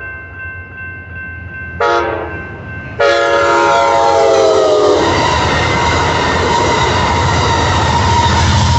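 Amtrak San Joaquin passenger train horn gives a short blast about two seconds in, then a long blast from about three seconds whose pitch falls as the train reaches the crossing. The horn gives way to the rumble and clickety-clack of the passenger cars passing, with the crossing bell ringing steadily.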